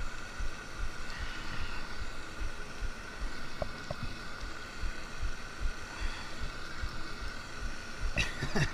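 Spinning reel being cranked steadily to reel in a hooked fish, a continuous whir, over irregular low thumps of wind and handling on the body-worn microphone.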